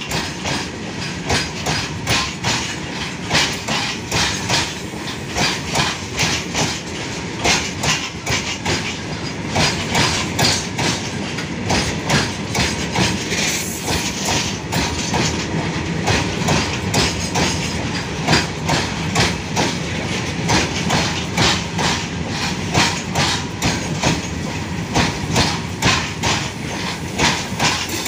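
Indian Railways goods train of open-top freight wagons rolling past at close range: a steady rumble with a regular clickety-clack as each wagon's wheels pass over the rail joints.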